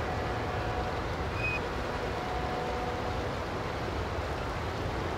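Steady low rumble and hiss of a dockside ambience, with faint held tones and a short high tone about a second and a half in.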